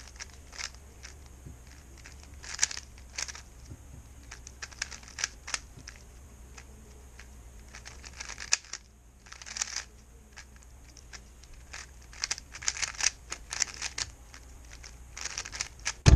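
A 3x3 speedcube being turned fast, its plastic layers clicking and clacking in irregular quick runs with short pauses between. A steady low hum lies underneath.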